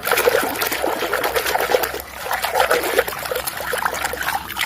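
Water trickling and splashing irregularly as a muddy toy is washed by hand.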